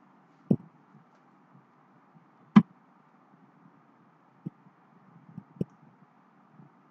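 A few scattered knocks and clicks, the loudest about half a second and two and a half seconds in, with smaller ones later, over a faint steady hum in a small room.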